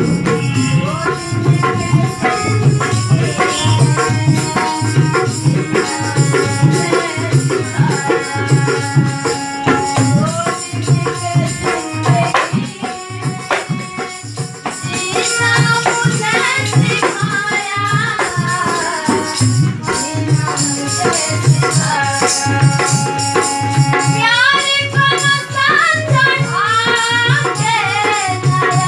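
A girl singing a Bhojpuri folk song to her own harmonium, with a dholak keeping a steady beat underneath. The singing drops out for a few seconds in the middle while the harmonium and drum carry on.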